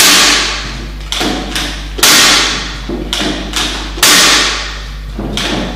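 Chain brake of a Zomax ZM 4620 chainsaw being set and released by hand at the front hand guard, engine off: three loud snaps about two seconds apart, with quieter clicks between them.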